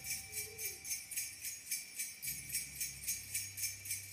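Background music led by jingling bells keeping a quick, even beat.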